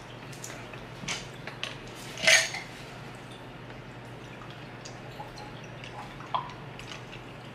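Ice cubes clinking in a glass mug as it is handled, the loudest clink a little after two seconds in, then juice poured from a carton over the ice.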